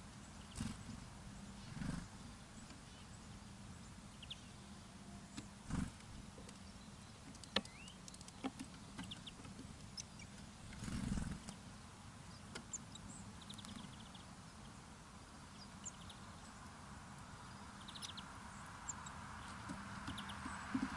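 Small birds at a winter feeder: scattered short, high chirps and quick trilled calls, with occasional sharp knocks and taps. A brief rustling flutter comes about eleven seconds in.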